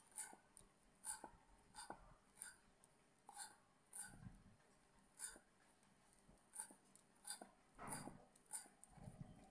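Kitchen knife chopping fresh coriander on a wooden chopping board: faint, sharp taps of the blade on the board, about one to two a second, with a few soft thuds.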